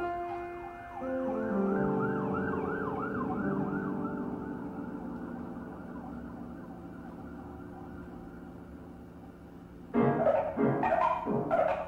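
A held piano chord slowly dying away under a high, regularly wavering tone. About ten seconds in, loud drum strikes break in.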